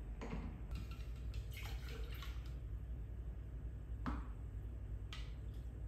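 Coffee splashing and dripping through a paper filter in a plastic funnel into a glass bottle: a spell of short splashes in the first couple of seconds, then two single drops about four and five seconds in.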